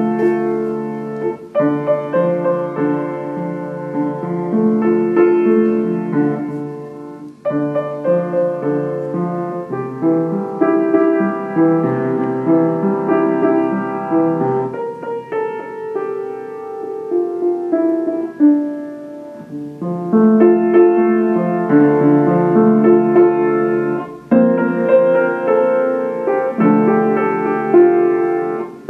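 Acoustic upright piano played solo, note phrases broken by short pauses.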